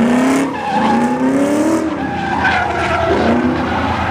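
Ford Mustang drifting: the engine revs in about three climbing pulls while the tyres skid across the asphalt.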